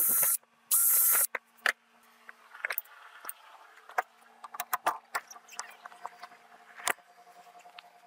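Power drill boring holes through a wooden block in two short bursts in the first second and a half, its whine rising as each burst starts. Then scattered light knocks and clicks of the block and tools being handled.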